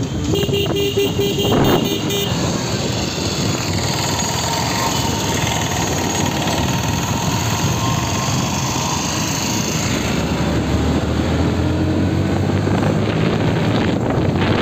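Bajaj Pulsar NS160's single-cylinder engine running under way through city traffic, with wind rushing on the microphone; its pitch climbs a little as the bike speeds up in the last few seconds. A quick run of short high beeps sounds in the first two seconds.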